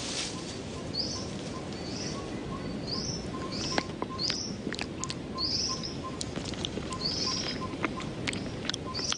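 Wild birds calling in forest, one repeating a short high chirp about once a second, over a faint steady piping note and scattered light ticks.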